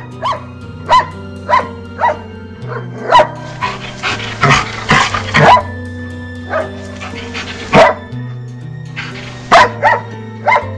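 A dog barking repeatedly in short, sharp barks, about one every half second to second, with a rougher, noisier stretch of barking in the middle, over background music with held low notes.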